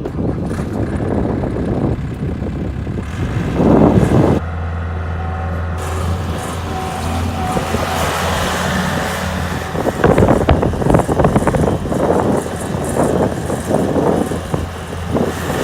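Gehl 4640 skid steer's engine running, loud and mechanical. About four seconds in, a loud rush of noise gives way to a steady low engine drone. From about ten seconds in the sound turns rougher and uneven, as the machine works or moves.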